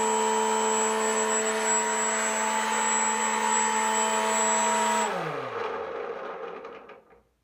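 Brushless electric motor and propeller of a 3D-printed RC seaplane running at a steady speed with a faint high whine during a final pre-flight check. About five seconds in it is throttled down and spins down in falling pitch to a stop.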